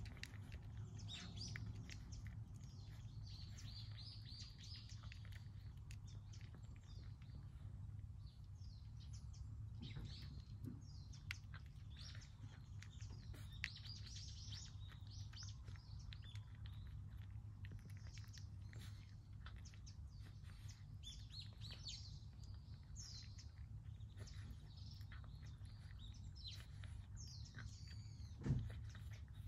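Small birds chirping and twittering throughout, over a low steady hum, with the crackle of a cat crunching dry kibble close by. A single thump near the end is the loudest sound.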